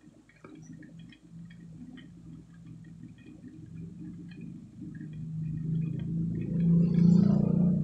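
Low steady electrical hum, of the kind a powered audio amplifier board puts through its speaker, swelling louder in the last few seconds, with small clicks from the board being handled.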